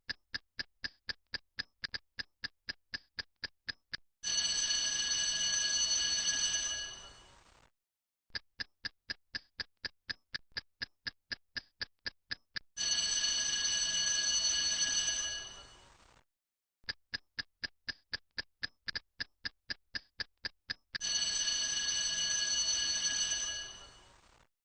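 Countdown-timer sound effect: a clock ticking about four times a second for some four seconds, then a ringing alarm bell that fades over about three seconds. This happens three times.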